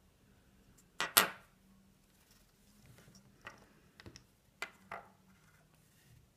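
Small hard objects being handled: a sharp double clatter about a second in, the loudest, then a handful of lighter clicks and taps spread over the next few seconds.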